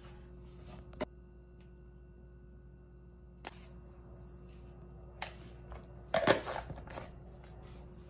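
Spices being shaken and tapped from packets into a plastic mixing bowl: a few soft isolated taps and rustles, with a short burst of rustling about six seconds in, over a faint steady hum.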